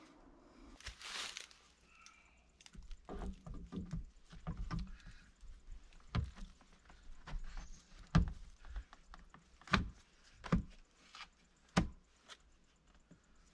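Wooden 2x6 board with a vent fitting being pushed and knocked into place in a window frame: scattered scraping and rustling, then a series of sharp thumps and knocks, the loudest several in the second half.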